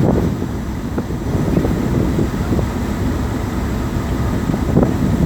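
Steady low rumble of a boat under way: engine and water noise heard from on board.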